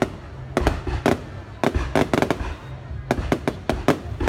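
Aerial fireworks bursting overhead: a rapid, irregular series of sharp bangs in clusters, the densest run of cracks about three seconds in, over a continuous low rumble.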